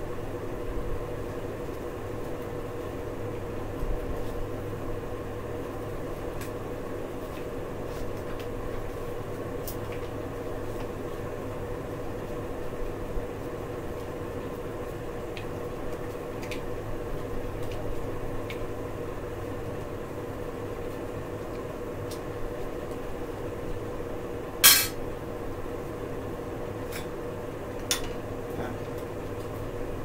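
Scattered small metallic clicks and clinks from hands working at a bicycle's handlebar controls, over a steady low hum; one sharper, louder click comes late on.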